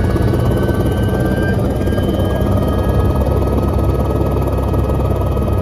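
Helicopter running: a loud, steady rotor and engine rumble with a high turbine whine held over it.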